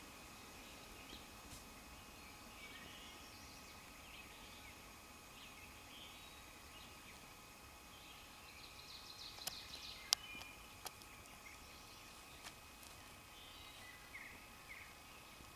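Faint woodland ambience with scattered songbird chirps. About two-thirds of the way in, a brief rustle is followed by three sharp clicks, the middle one the loudest.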